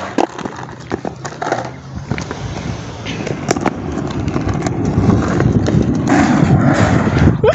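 Skateboard wheels rolling over rough asphalt pavement with the rider sitting on the board, a rumble that grows steadily louder as it picks up speed, with a few sharp clicks and knocks along the way.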